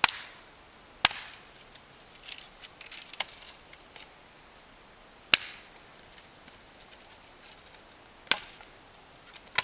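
A hatchet chopping into a thin sapling near its base: five sharp, unevenly spaced blows, with a cluster of lighter clicks about two to three seconds in.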